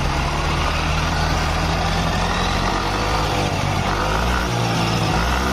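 Yamaha NMAX scooter's single-cylinder engine revved with the throttle opened wide, running steadily and smoothly with no tapping now that the cam chain tensioner has been replaced.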